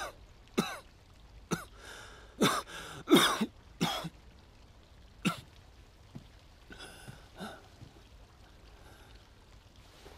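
A man in a coughing fit: about ten harsh coughs, the loudest packed into the first four seconds, then a few fainter ones that die away by about eight seconds in.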